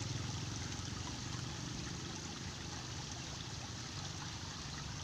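Steady trickle of flowing stream water.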